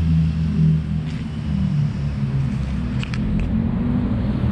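Steady low rumble of a car's engine and road noise, with a few faint ticks around the middle.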